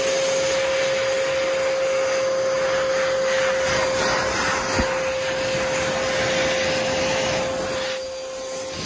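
World Dryer Airforce hand dryer running: a steady rush of air with a constant high motor whine, a single light knock about halfway, then the airflow drops and the motor shuts off near the end.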